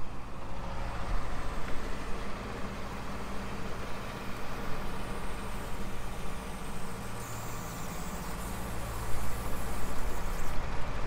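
Narrowboat's diesel engine running steadily at low revs, a constant low hum.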